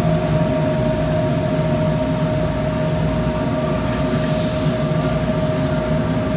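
Steady drone of restaurant kitchen fans, a constant hum with a held mid-pitched tone. About four seconds in a high hiss joins as the skillet of stir fry sizzles and flares over the gas burner.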